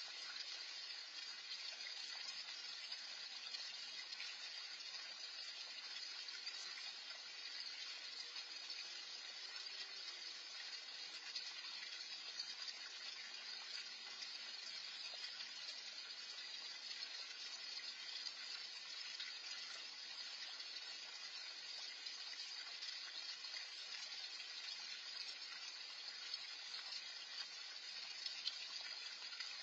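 Steady splashing of water from a small fountain spilling into a backyard pond, heard as an even, faint rush with no change.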